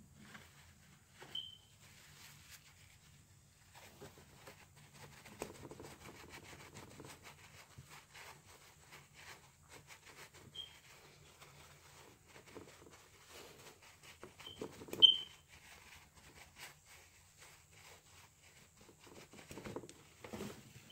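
Crumpled tissue being dabbed and pressed onto a painted canvas, soft rustling and patting that comes and goes, with a few short high chirps, the loudest about fifteen seconds in.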